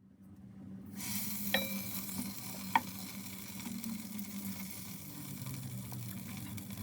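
Butter sizzling as it melts in the hot pot of a rice cooker, the hiss coming in about a second in and then running steadily. Two light clicks sound in the first few seconds.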